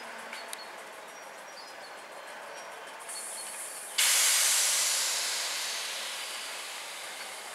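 Class 205 'Thumper' diesel-electric multiple unit running slowly into a station, with a quieter hiss about three seconds in and then a sudden loud air hiss about four seconds in that fades away over the next few seconds, typical of the air brakes being applied as it slows.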